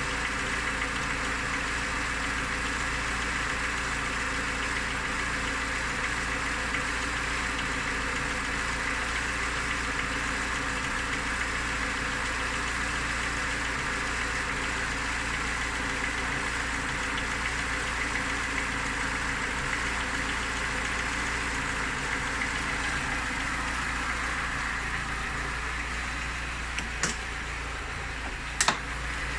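Niva car engine idling steadily, with a knock in it whose cause the owner is asking about. Two short sharp clicks near the end.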